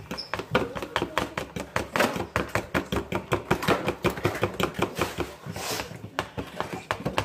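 A fork beating cake batter by hand in a mixing bowl, clicking against the bowl in a fast, even rhythm of about five strokes a second.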